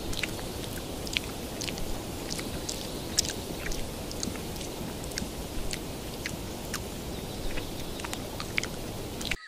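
Long-tailed macaque chewing food, a run of small irregular crunching clicks over a steady background hiss.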